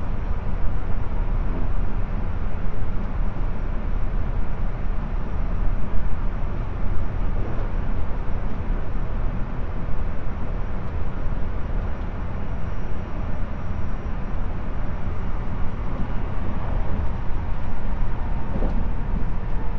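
Running sound of a JR Central 373 series electric train, recorded inside the motor car KuMoHa 373-5 while it travels at speed: a steady low rumble of wheels on rail with a faint steady hum.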